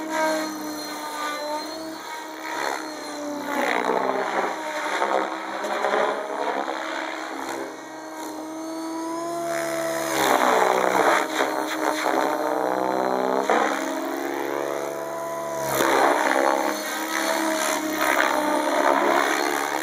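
Electric Compass 7HV RC helicopter in aerobatic flight: the motor and rotor blades whine, the pitch sweeping up and down as it swoops and passes. It is loudest from about ten seconds in and again around sixteen seconds.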